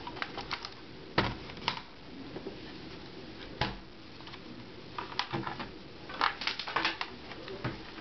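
Two small netbooks being handled, lifted and set down on a glass tabletop: a scatter of sharp knocks and clicks, with a quick cluster of them past the middle.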